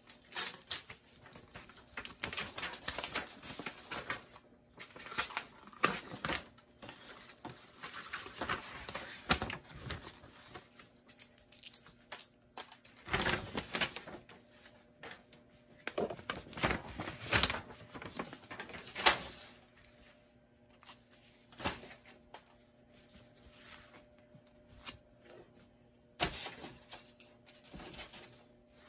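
Sublimation transfer paper rustling and crinkling as it is handled, with heat tape being pulled and torn, in short irregular strokes.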